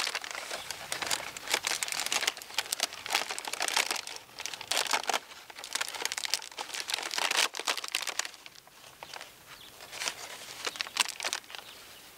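Paper pollination bag crinkling and rustling as it is handled, wrapped around a corn tassel and fastened to the stalk. It makes a dense run of irregular crackles that eases off about eight seconds in, with a few more near the end.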